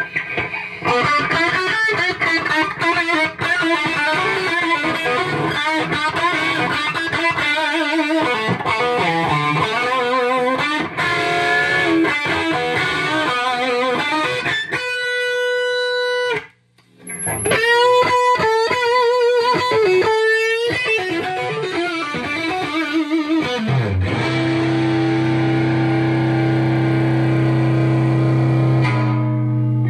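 Electric guitar with PAF-style humbucking pickups played through a cranked valve amp run at 90 V from a variac, giving a saturated, overdriven tone. Fast riffs and runs, a brief stop about halfway through, then a held chord ringing out over the last few seconds.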